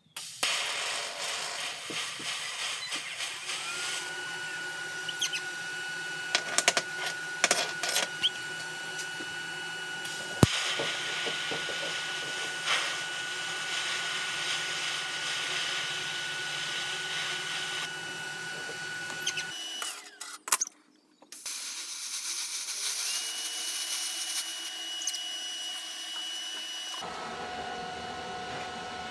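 TIG welding arc on a small steel bracket: a steady hiss with a thin, high, even whine, held for long stretches, with a few sharp clicks early on and a brief break about twenty seconds in before the arc runs again.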